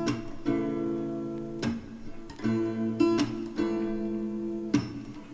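Background music: acoustic guitar strumming sustained chords, struck about every second and a half, between the sung lines of a soft pop song.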